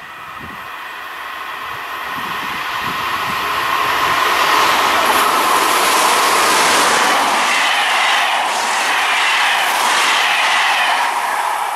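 An SNCF Z2 (Z 7300-class) electric multiple unit, three sets coupled, approaching and passing close by. It grows steadily louder over the first four seconds, then gives a loud, steady rush of wheels on rail as the cars go by.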